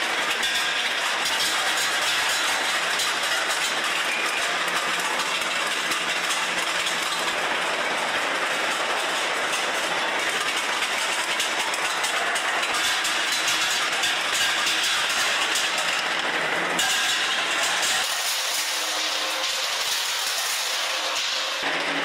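Steel balls rolling and clattering along metal chutes and a conveyor: a dense, steady metallic rattle with factory machinery running. The rattle changes character abruptly a few times near the end.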